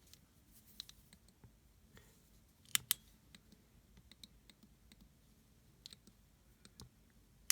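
Faint, scattered clicks and taps from a tactical flashlight and its lanyard being handled, with a sharper double click about three seconds in.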